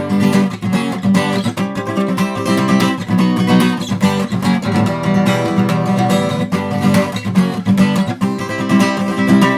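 Acoustic guitar strummed in a steady rhythm, chords ringing, with no singing.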